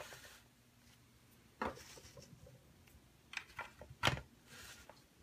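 Plastic toy swords pushed into the slits of a plastic pirate-barrel game, a handful of sharp separate clicks a second or so apart.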